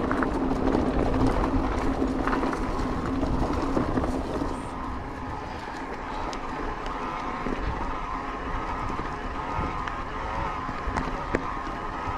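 Riding noise from a Haibike electric mountain bike on Wolfpack Enduro tyres: a steady hum with tyre and wind rush and small scattered ticks, easing off slightly after about four and a half seconds.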